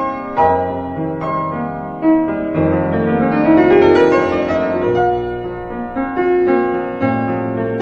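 Background piano music: gentle, separately struck notes, with a rising run of notes in the middle.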